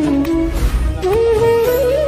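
Background music: a single melody line that steps and glides between notes over a steady low bass.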